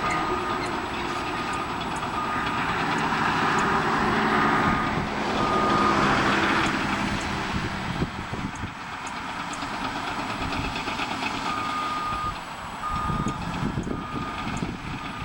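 Backup alarm of heavy construction machinery beeping at a steady pace over diesel engine noise. The beeping stops about six seconds in and starts again near the end.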